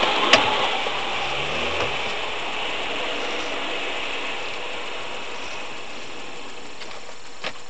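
Road noise from inside a moving car, with a dense mechanical rattle, slowly getting quieter. A sharp click comes just after the start and two more come near the end.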